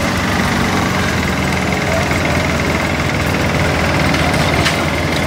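An engine running steadily at idle close by, an even low drone.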